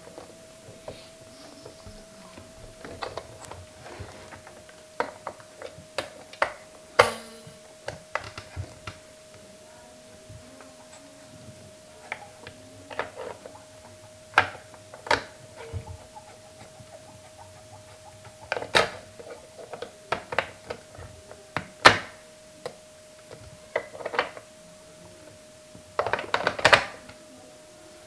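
A hard plastic toy elephant being handled and set down on a tabletop: scattered clicks, taps and knocks, with a short cluster of knocks near the end. A steady faint whine runs underneath.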